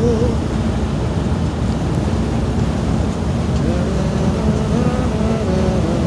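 Steady road and engine rumble of a motorcoach cruising at highway speed, heard from inside the passenger cabin. Faint wavering tones sound in the background in the second half.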